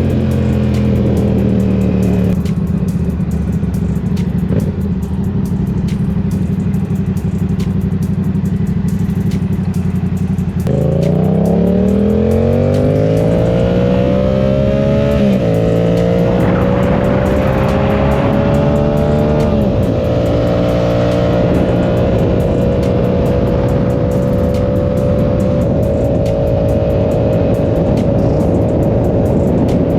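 2023 Yamaha R7's parallel-twin engine through an aftermarket M4 exhaust, under way on the road with a low growl. It holds a steady cruise, then about a third of the way in it pulls hard up through the revs, with two upshifts briefly dropping the pitch, and settles into a steady cruise at a higher pitch.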